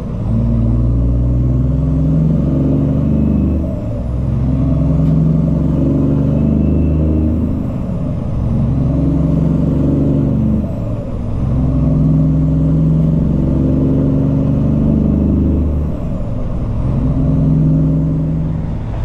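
Heavy truck's diesel engine pulling under load. Its note breaks off briefly about four times, every three to five seconds, as it shifts through the gears.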